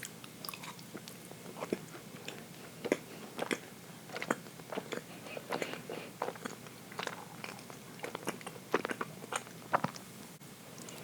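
Close-up chewing of dense chocolate cake: irregular short mouth clicks and smacks, a few a second.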